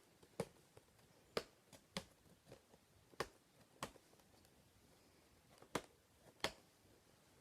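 Scattered light clicks and taps, about eight of them at uneven intervals, from handling the plastic and cardboard packaging of a computer mouse while picking at its tape.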